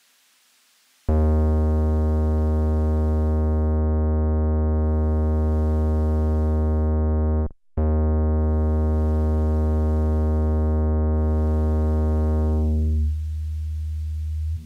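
Akai Rhythm Wolf's bass synth holding one low, steady note, broken off for a moment about six and a half seconds after it starts. Near the end its filter closes, so the tone turns dull and quieter before it stops.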